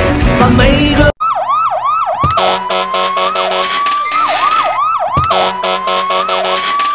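Music cuts off about a second in. Then an emergency siren sounds, switching between bursts of quick up-and-down whoops and a slow rising wail, over a low steady hum.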